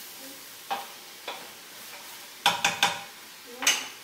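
Spoon stirring chopped vegetables in a stainless steel stockpot and knocking against the pot: two light knocks, then a quick run of three sharp ones about two and a half seconds in and one more near the end. Under it, a steady faint sizzle of the vegetables cooking in oil.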